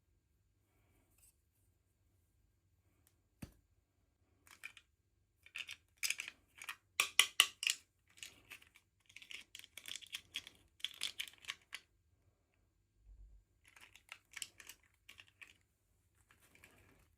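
Plastic packaging being handled and opened: one sharp click, then bursts of rapid crackling and clicking, loudest a few seconds in.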